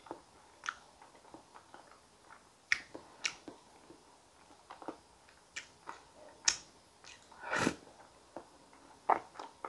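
Close-miked mouth sounds of chewing soft sweet potato and creamy soup: scattered wet smacks and clicks, with one longer, louder wet sound about three-quarters through.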